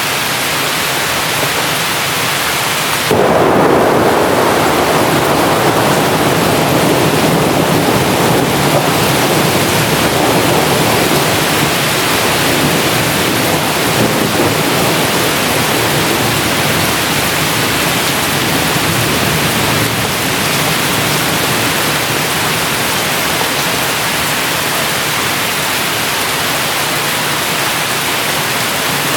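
Heavy rain falling steadily as a dense hiss, with a thunderclap about three seconds in that rumbles on and slowly dies away over the next ten seconds or so.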